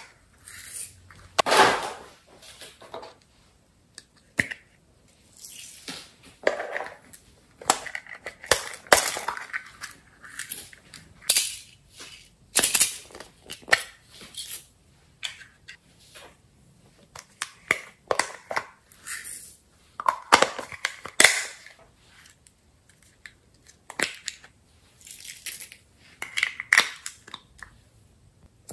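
Small plastic containers being handled and opened: scattered sharp clicks, snaps and short crackles, with quiet gaps between them.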